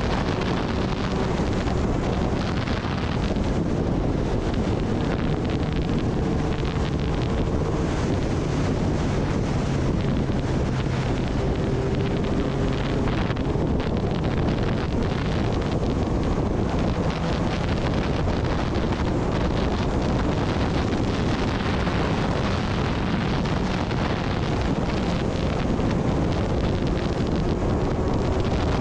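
Heavy wind noise on the microphone from riding at speed, over a Kawasaki Ninja ZX-10R's inline-four engine running at an even pitch with no sharp revs.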